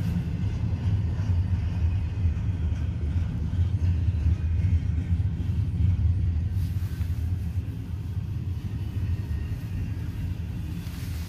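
Double-stack intermodal container train rolling past: a steady low rumble from its wheels and cars, muffled by the car window glass, easing slightly after about seven seconds.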